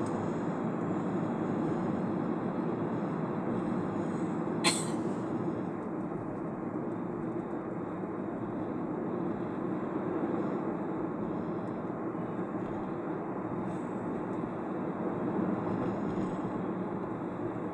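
Steady road and tyre noise of a car being driven. One sharp click comes about five seconds in.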